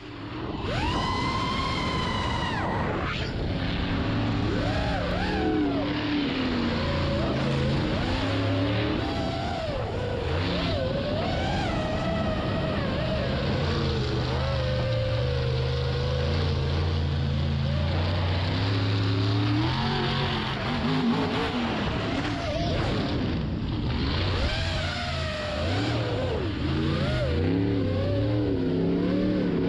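FPV racing drone's motors whining, a steady high whine in the first seconds, then rising and falling with the throttle, over the low steady rumble of a monster truck's engine.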